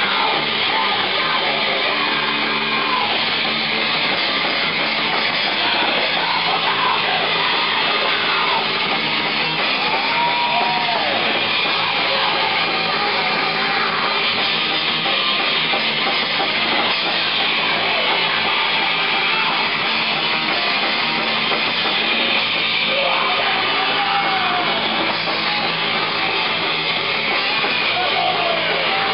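Live thrash metal band playing: distorted electric guitar, bass guitar and drum kit in a dense, loud, steady wall of sound, with shouted vocals at the microphone.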